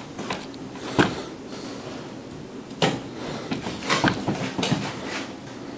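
Several short, separate knocks and clunks, as of hard objects being handled or set down on a countertop.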